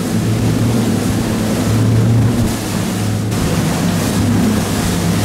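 Motorboat engine droning steadily while the boat runs through chop, with water rushing along the hull and wind noise over it. The engine note weakens briefly about halfway through, then carries on.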